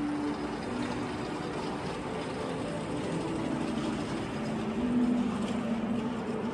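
Steady background ambience of an indoor shopping arcade: a constant hum and hubbub with a few held low tones, swelling slightly about five seconds in.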